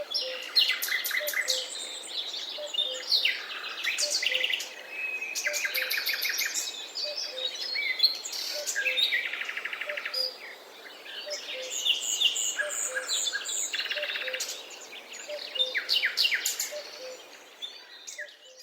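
Several songbirds singing and chirping over one another in quick trills and whistled phrases, with a low short call repeating about once a second, over a steady background hiss. The sound fades out near the end.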